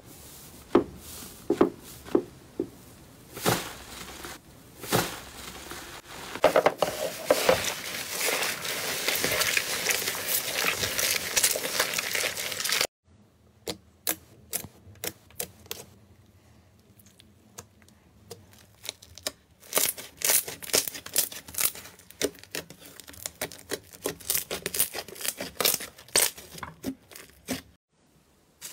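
Fingers pressing and squishing slime: a few sharp wet pops, then a dense crackling that cuts off suddenly about halfway through. After that, fingertips poke a glossy bubble slime, giving a long run of sharp little clicks and pops.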